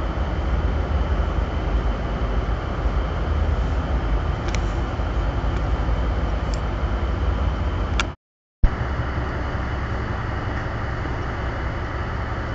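Harbour tug's diesel engines running steadily, heard from inside the wheelhouse as a low drone. The sound breaks off for about half a second around two-thirds of the way through, then resumes.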